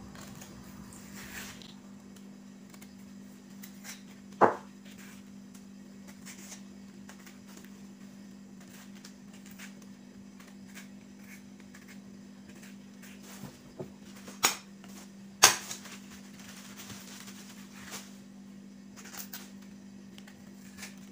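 Faint scraping of a small knife peeling the skin off a young green banana, with a few sharp knocks (a loud one about four seconds in, two more around fourteen to fifteen seconds in), over a steady low hum.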